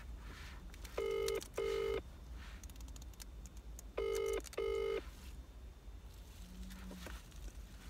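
British double-ring telephone ringback tone heard through a phone's speaker: two 'ring-ring' pairs about three seconds apart, as an outgoing call waits to be answered.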